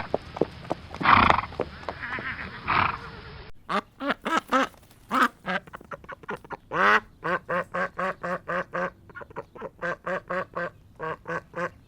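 Ducks quacking in a fast run of short, repeated calls, starting about three and a half seconds in, after a stretch of noisy background with two louder bursts.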